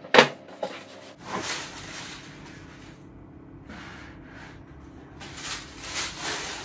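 Cardboard shoe box being handled and opened, with paper and packaging rustling; a sharp knock comes just after the start.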